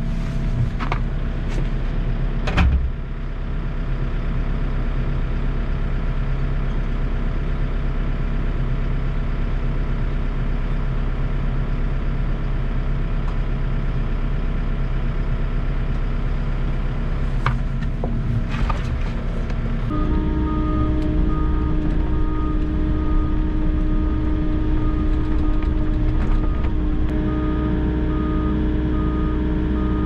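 Volvo EC60E mini excavator's diesel engine running steadily, heard from inside the cab, with a few sharp clicks. About two-thirds of the way in it gets louder, and a repeating beep sounds over it.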